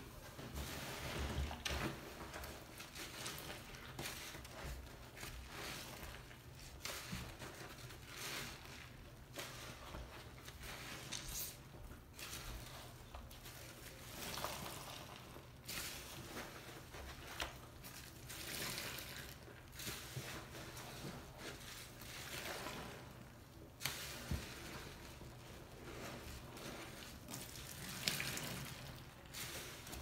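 Waterlogged, soapy sponges squeezed and kneaded by hand in a sink of water: irregular wet squishing and sloshing.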